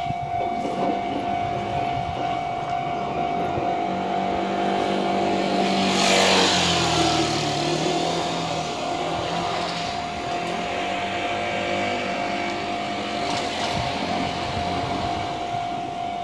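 Japanese level-crossing warning bell ringing steadily while the crossing is closed. About six seconds in, a vehicle passes close by, rising and fading with a falling pitch.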